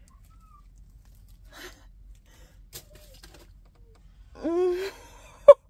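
A woman's laughter over faint rustling and a few small clicks: a drawn-out vocal sound about four and a half seconds in, then a sharp, loud laugh right at the end as she reacts to spilled diamond-painting drills.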